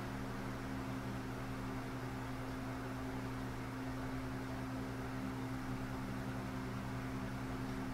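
Steady low hum with several held tones under an even hiss: the constant background noise of the recording, like a computer fan or electrical hum picked up by the microphone.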